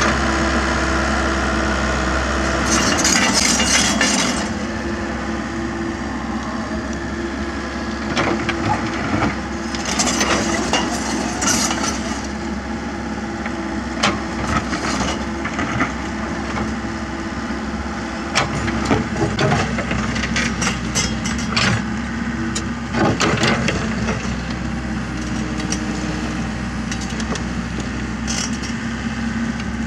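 Komatsu PC78US mini excavator's diesel engine running steadily while the bucket digs a trench, with repeated scraping, crunching and sharp knocks of the bucket against soil and stones.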